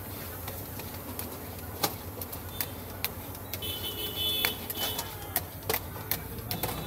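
Metal spatulas chopping and scraping on a stainless steel cold plate as ice cream mix is worked on it, giving sharp irregular taps and clicks over a steady low hum.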